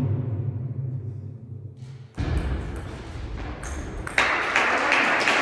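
Table tennis ball being struck in a rally: sharp pocks of the ball on bat and table, about three a second, start about four seconds in over a steady hiss of hall noise. Before that, music fades out over the first two seconds.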